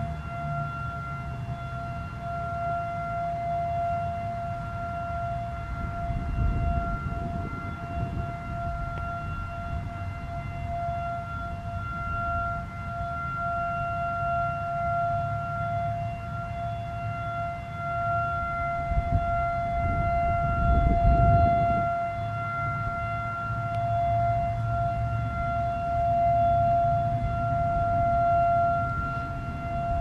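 Federal Signal 2001-SRN outdoor warning siren sounding its steady alert tone: one held pitch, swelling and fading gently in loudness. Two spells of low rumble come through about a third of the way in and again past two thirds.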